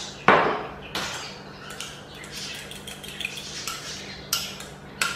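Kitchenware clinking and knocking: a few sharp metal-on-metal knocks, the loudest about a quarter second in and others near the one-second mark and near the end, with softer clatter in between.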